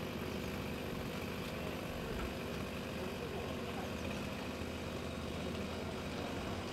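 Diesel engines of heavy machinery, such as the excavators clearing landslide debris, running steadily in a continuous low hum.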